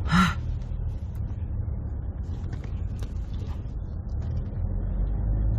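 Steady low rumble of a car's engine and road noise inside the cabin, with a brief vocal sound just at the start.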